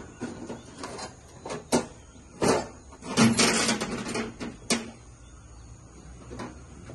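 Scattered sharp clicks and knocks as parts on the opened front of an engine are handled, with a denser clatter about three seconds in that lasts for a second or so.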